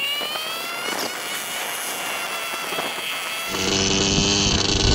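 Small dirt bike engine running under load as it tows a motorcycle that has run out of fuel; its pitch climbs slightly in the first second, then holds steady. About three and a half seconds in, the sound turns suddenly louder and fuller, with a low rumble of wind on the microphone.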